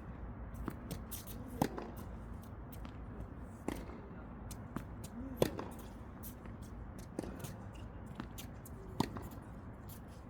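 Tennis balls being struck with rackets in a rally, a sharp pop about every two seconds, with fainter taps in between.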